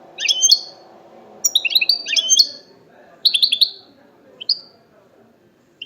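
European goldfinch giving a series of short, high, chirping call phrases, about five bursts each lasting under half a second.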